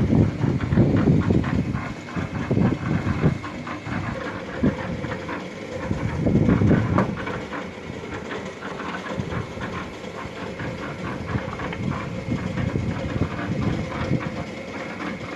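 Drum concrete mixer machine running, with rapid clattering from the turning drum and its load, and heavier low surges in the first couple of seconds and again about six seconds in.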